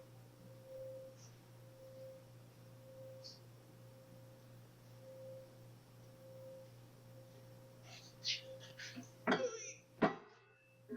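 A steady low hum with a faint tone that swells and fades about once a second. From about eight seconds in come light metallic clicks, then a few sharp knocks as metal parts are handled and fitted.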